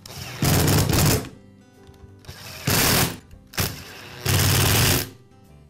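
Power screwdriver running in three short bursts, driving screws into the plastic rear housing of a DeWalt angle grinder.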